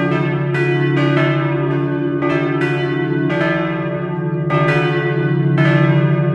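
Three bronze Laudy church bells, tuned d', e' and F-sharp', swing-rung by hand with ropes from straight yokes in a wooden bell frame. The strokes fall unevenly, about two a second, and overlap, each bell ringing on under the next stroke.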